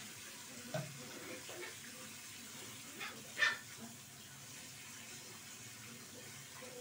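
Water running from a bathroom sink tap while a small dog is shampooed in the basin, with a brief high squeak about three and a half seconds in.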